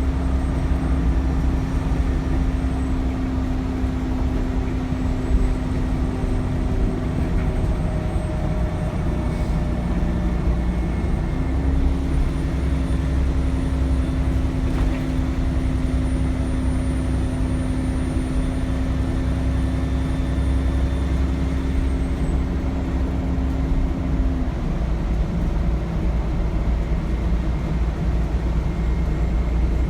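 Cummins ISBe diesel of an Alexander Dennis Enviro400 double-decker bus running under way, heard on board. A thin, high turbocharger whistle rises slightly in pitch and holds, then falls back near the end, over a steady low engine and road drone.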